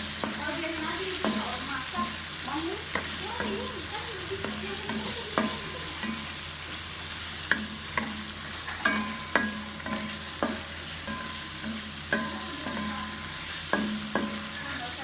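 Food sizzling steadily in a frying pan while a spatula stirs it, knocking and scraping against the pan roughly once a second, some knocks ringing briefly.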